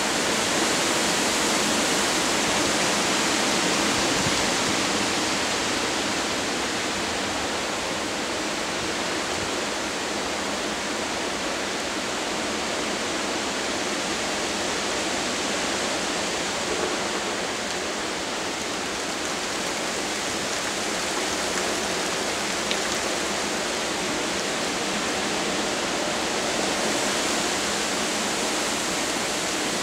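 Strong wind rushing steadily through the treetops ahead of a hurricane's landfall, an even hiss with no gusts standing out.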